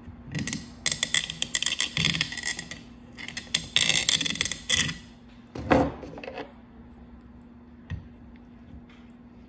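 Point of a kitchen knife twisted and ground into the eye of a coconut shell: two spells of rapid scraping clicks, then a single dull knock.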